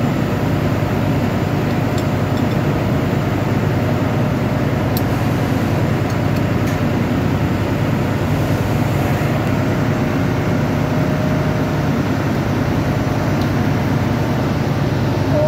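Engine-room machinery running with a steady, loud drone: a constant low hum under a wash of noise, with a few faint clicks.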